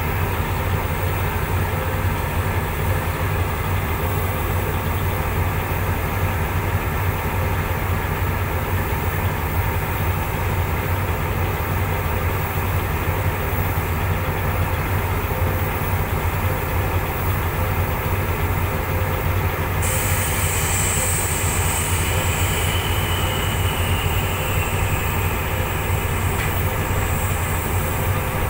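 Diesel-electric locomotive engine running with a steady low drone. About twenty seconds in, a hiss joins it along with a faint, slowly falling whine.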